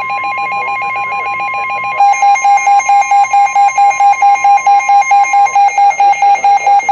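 NOAA Weather Radio's steady 1050 Hz warning alarm tone, with an electronic alarm beeping about four times a second over it. The beeping gets much louder about two seconds in, and the steady tone stops near the end while the beeping carries on.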